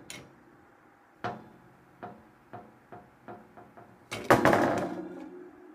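Light taps and clinks of an aluminium soda can being handled on a wire oven rack, then a louder clatter a little over four seconds in, after which a ringing metal tone hangs on.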